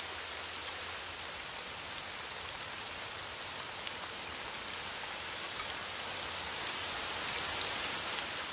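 Rain falling steadily: an even hiss with scattered light drop ticks.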